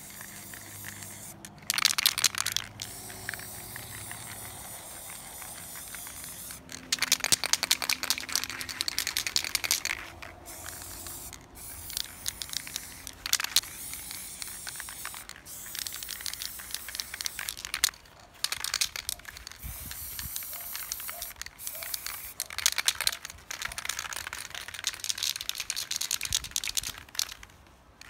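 Aerosol spray paint can spraying in a series of hissing bursts, each one to three seconds long, with short pauses between them.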